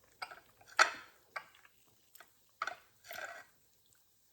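Sounds of a person eating: a run of short, sharp clicks and small knocks, the loudest about a second in, with a brief soft rustling noise about three seconds in.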